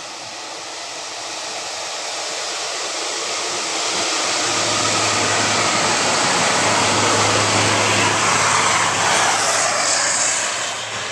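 A bus approaching and passing on the road: engine and tyre noise grows steadily louder over several seconds, with a low engine hum underneath, and eases off near the end as the bus goes by.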